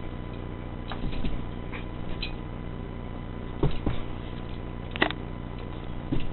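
A dog playing, with a handful of short, scattered thumps and scuffs of its movement over a steady low hum.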